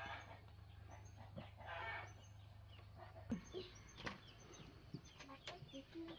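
Chickens clucking faintly, with a few light knocks in the second half and a low hum that stops about three seconds in.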